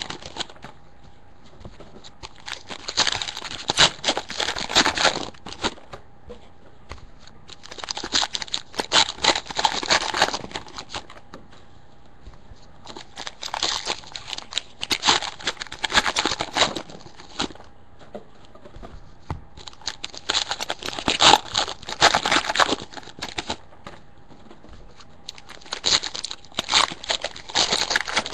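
Foil trading-card pack wrappers (2013 Press Pass NASCAR Racing) being torn open and crinkled, in five separate bursts of a few seconds each with short pauses between.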